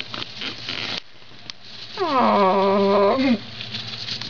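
Mice scrabbling in wood-shavings bedding, then about two seconds in a person's long, drawn-out "aww" that falls in pitch and is held for about a second.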